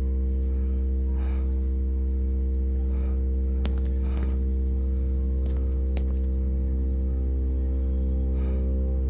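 Low, steady ambient drone of the film's sound design: several sustained pitches layered into one unchanging hum, with faint short ticks scattered through it.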